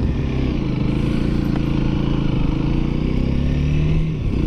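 Honda Rebel 300's single-cylinder engine pulling under acceleration, its note climbing steadily in pitch, with wind rush over it. The engine note drops briefly near the end.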